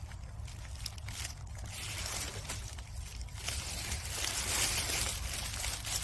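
Irregular rustling and crunching of dry leaves and undergrowth as someone moves and handles plants on the forest floor, over a steady low rumble.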